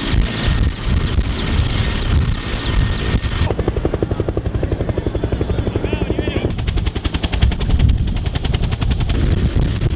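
A Mil Mi-8-type transport helicopter running on the ground with its rotors turning, the blades beating in a rapid, even chop.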